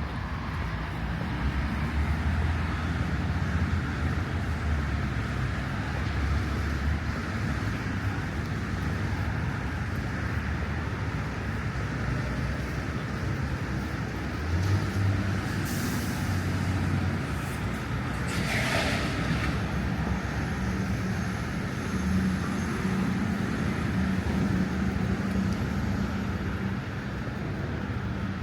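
City traffic going by: a steady low rumble of passing vehicles, with a short hiss about two-thirds of the way through.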